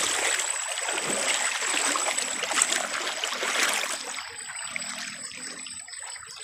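Shallow freshwater trickling and splashing as someone wades and moves through it. It is louder for the first four seconds, then quieter, over a thin steady high-pitched tone.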